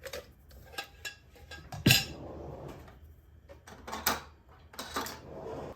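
Dishes and cutlery clattering: a series of light clinks and knocks, with one sharper knock about two seconds in.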